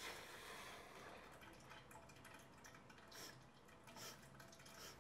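Faint trickle of liquid into a stainless-steel wall urinal, with a few soft drips in the second half; otherwise near silence.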